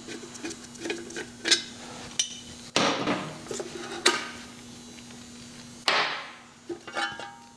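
Sharp metallic clanks and knocks of tools and parts being handled while the valve cover is worked off the top of a Willys 134 ci F-head engine. The knocks come at irregular intervals, and one near the end trails off over about a second.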